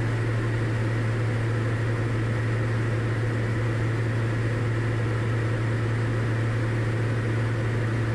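Diamond DA40 single-engine light aircraft's engine and propeller droning steadily in the cockpit in cruise flight, a constant low hum with a wash of noise over it.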